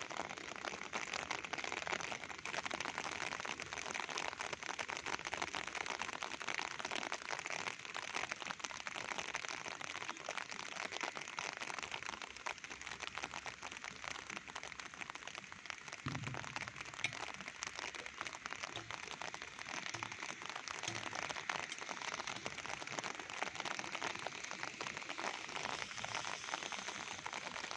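Steady rain falling, a dense, even patter of drops hitting surfaces. In the second half a few soft low thuds come through.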